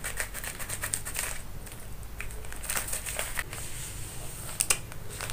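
Scissors snipping open a bubble-padded plastic mailer, then the plastic packaging crinkling as the contents are pulled out. Quick clicks and crackles crowd the first second and a half, with one sharp click near the end.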